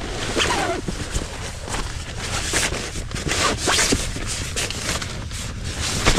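Tent being pitched by hand: irregular rustles and scrapes of tent fabric and gear, with zipper-like rasps.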